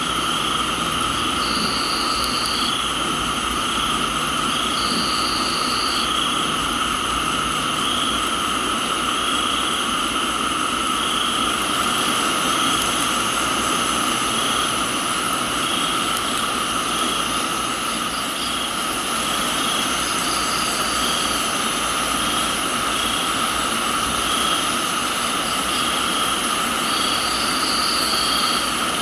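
Crickets chirping in a steady chorus, with regular pulsing chirps about once a second, over a steady hiss of rain. A higher trill of about a second breaks in four times.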